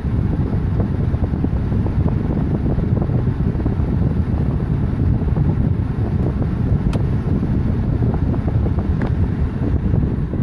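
BMW E46 330d's M57 six-cylinder turbodiesel running unevenly: the lumpy, rough running that the owner puts down to a failing cylinder 6 injector.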